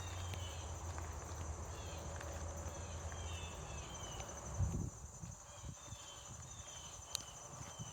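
Insects trilling steadily with a fast pulse, with short high chirps repeating over it. A low hum stops with a single thump about halfway through.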